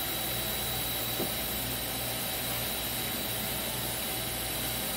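Steady machine-shop hum with an even hiss and a thin high whine, from running shop machinery, with a faint click about a second in.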